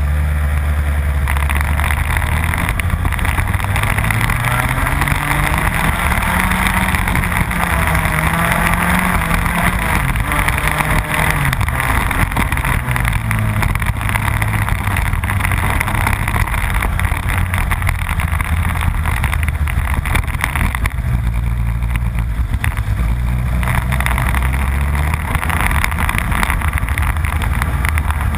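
Rotax Max 125cc single-cylinder two-stroke kart engine, heard from a camera on the kart. It pulls away from low speed with its pitch rising over the first few seconds, then rises and falls again as it speeds up and slows around the track.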